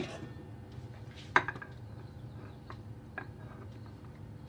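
Steel spoon knocking against a pan and glass dish while custard is spooned out: one sharp clink about a second and a half in, then a few light taps, over a low steady hum.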